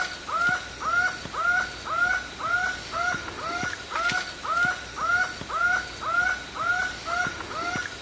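A short animal call repeated very regularly, about twice a second, each note bending quickly up and then down, over a steady high buzz that pulses on and off.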